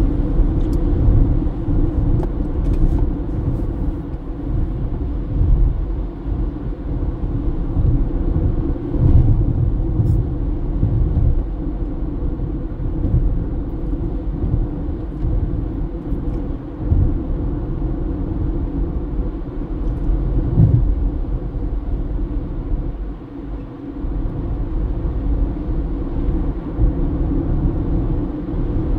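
Car driving along a road: a steady low rumble of tyres and engine, with a faint steady hum, that eases briefly about three-quarters of the way through.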